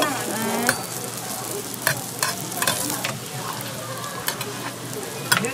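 Hotteok frying in shallow oil on a flat griddle, sizzling steadily, with a metal spatula clicking against the griddle every half second or so as the pancakes are worked.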